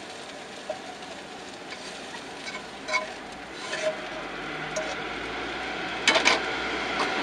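Spatula scraping and clinking against a frying pan as a fried potato, pea and bacon dish is served onto a plate, over a soft sizzle from the hot pan. A few sharper clinks about six seconds in.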